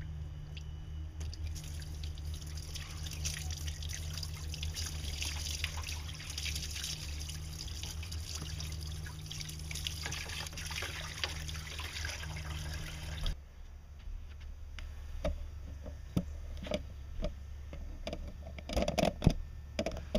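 Water pouring and splashing out of a disconnected exhaust-manifold drain hose on a marine V8: the engine's raw cooling water being emptied for winter storage. It cuts off suddenly about two-thirds of the way through, followed by a few knocks and clunks.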